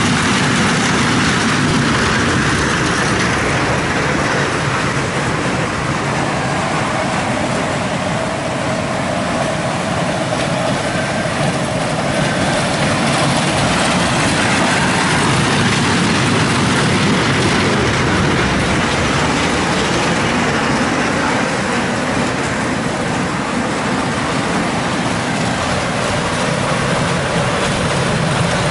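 Kiddie caterpillar train ride running on its small steel-rail oval track: a steady rumble and rattle of the wheels on the rails.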